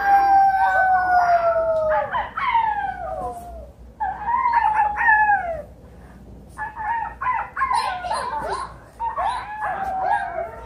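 Children howling in imitation of animals: a long held howl that slowly falls in pitch, then shorter falling howls, and from about six and a half seconds a quick run of short yelping cries.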